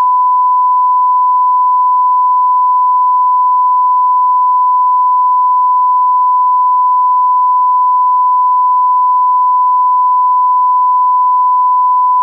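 A loud, unbroken censor bleep: a single steady 1 kHz beep tone held for the whole stretch, blanking out a long run of swearing.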